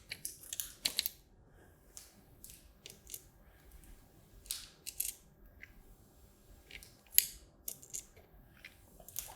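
Light, irregular clicks and taps of small 9 mm spacers being dropped one by one over the bolts in an acrylic mounting plate, the loudest about seven seconds in.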